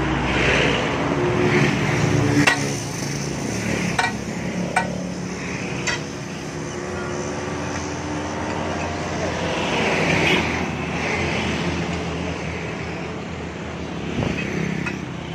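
Steady road traffic noise with engines passing, and a few sharp metallic clinks, about four in the first six seconds, as steel tools knock against the dump truck's underside.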